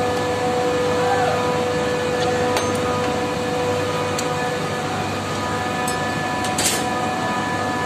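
Steady machinery drone with a constant hum tone, typical of running air-cooled chiller equipment. A few light clicks or taps come in from about two and a half seconds in.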